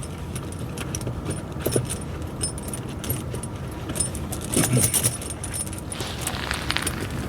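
Steel tractor tire chain (pewag doppelspur) clinking and rattling as its links are pulled over the tire tread, with scattered jingles and a busier stretch past the middle, over a steady low hum.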